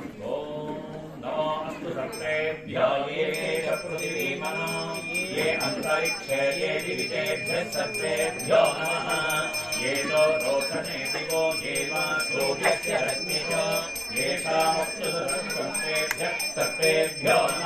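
A brass puja hand bell rung rapidly and continuously, starting about three seconds in, under a man's voice reciting Sanskrit mantras.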